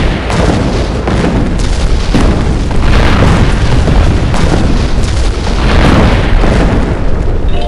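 A loud, continuous rumbling roar with crackle through it, holding steady at full strength after starting abruptly.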